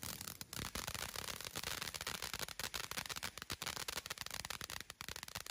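Ground fountain firework spraying sparks: a steady hiss thick with rapid crackling.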